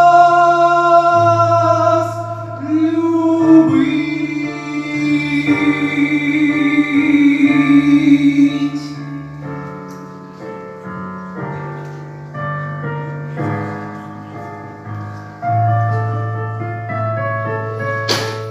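A boy's solo voice holds the song's final long notes over a backing track. The singing stops about nine seconds in, and the track goes on with a keyboard and piano outro over a steady bass line. A sharp knock comes right at the end.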